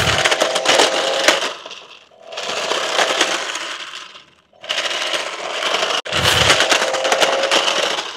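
A toy RC stunt car's electric drive motor and gears whining as it runs, over a dense crackling clatter, in several spurts with brief lulls between them.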